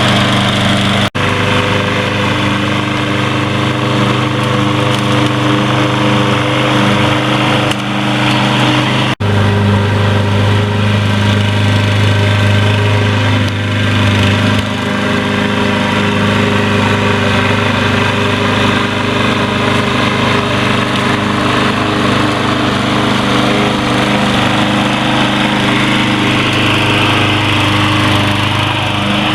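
Gas engine of a Troy-Bilt TB230 self-propelled lawn mower running steadily at mowing speed, cut by two very brief dropouts, about a second in and about nine seconds in.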